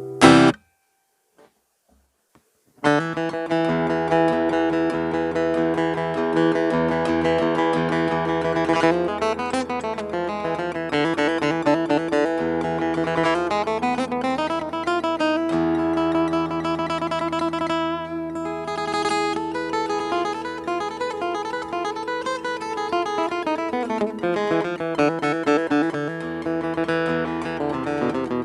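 Cort AD810 OP acoustic guitar being played: a brief chord cut off sharply at the very start, about two seconds of silence, then steady picked notes and strummed chords from about three seconds in.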